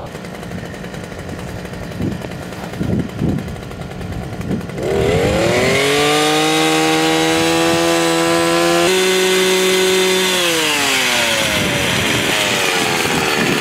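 Handheld gas-powered earth auger's small engine revving up about five seconds in and running at high speed while the spiral bit drills into the frozen soil, then slowing down near the end. Before it, a low steady hum with a few thuds.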